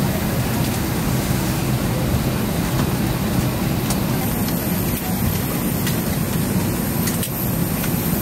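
Steady low rumble and rush of air inside a parked Airbus A320-200 cabin during boarding, with a few faint clicks.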